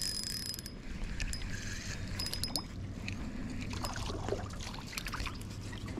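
A hooked panfish splashing and thrashing at the water's surface beside a small jon boat as it is reeled in on an ultralight spinning reel, with scattered light clicks from the reel and line.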